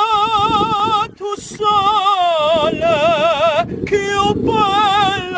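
A high voice singing in short phrases with a fast, wide vibrato, the pitch wavering up and down several times a second, with brief breaks between phrases.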